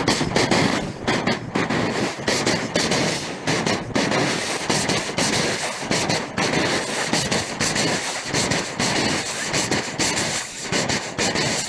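Vocal mimicry of a train crossing a steel bridge, made with cupped hands into a microphone: a continuous fast rhythmic clatter of voiceless 'ta' and 'pha' sounds standing for the wheels beating over the rail joints.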